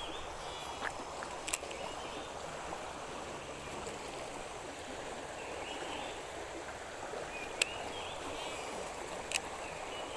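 Steady rush of fast-flowing river water, with a few sharp clicks about a second and a half in and twice near the end.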